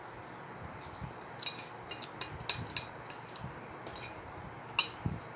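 Red plastic chopsticks clicking and clinking against a ceramic plate while picking up noodles: about half a dozen short, sharp clicks, the loudest near the end, with soft chewing between them.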